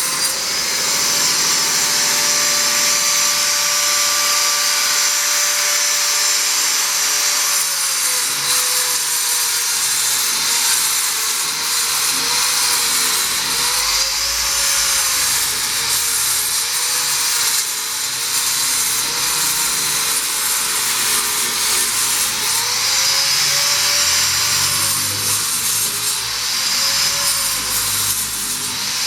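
Angle grinder with a widia (tungsten carbide) disc cutting a channel into a brick wall, a steady loud grinding with the motor's whine dipping and recovering again and again as the disc bites into the brick.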